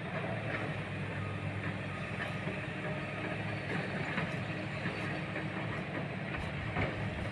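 Steady low engine rumble of a motor vehicle, with a few faint ticks.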